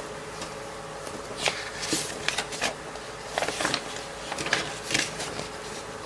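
Paper and plastic packaging of a model kit being handled: a handful of short rustles and crinkles spread through, over a steady background hum.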